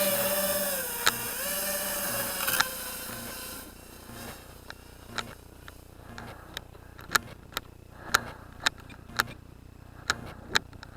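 Electric motor of a radio-controlled model airplane running with a steady whine that dips slightly in pitch, then stopping about four seconds in. After it, a run of sharp ticks about twice a second.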